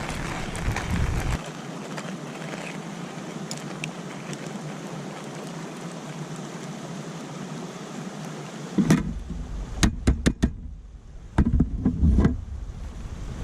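Steady outdoor background noise with wind buffeting the microphone, easing off after about a second and returning near the end. Near the end come a quick series of sharp knocks and thumps.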